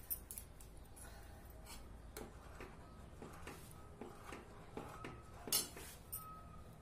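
Steel ladle stirring thick custard in a heavy-bottomed pan, faintly scraping and clinking against the metal, with one louder clink about five and a half seconds in.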